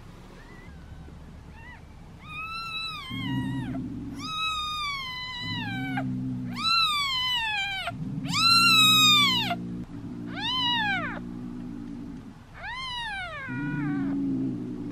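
Newborn kitten mewing: a string of about eight high, thin cries, each sliding down in pitch, the loudest near the middle.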